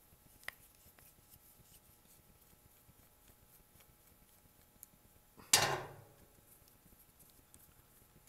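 Screwdriver backing out the small screws of a Zama diaphragm carburetor's plastic fuel-pump cover: faint ticks and light scrapes of metal on the screw heads, with a small click about half a second in and a single loud, short clatter about five and a half seconds in.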